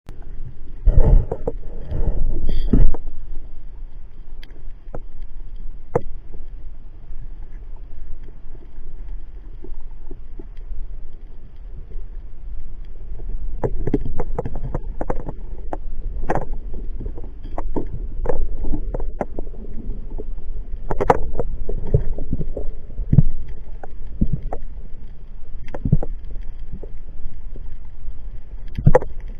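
Muffled underwater sound picked up by a camera in a waterproof housing: a low steady rumble of moving water with scattered clicks and knocks. It is louder and busier about one to three seconds in.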